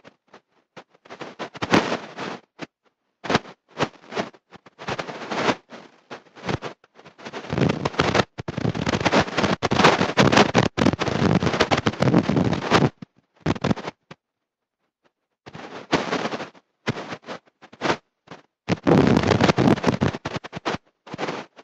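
Harsh crackling distortion in irregular bursts, cutting out to silence several times; the longest gap falls in the middle. The recording is breaking up, with any speech buried under the crackle.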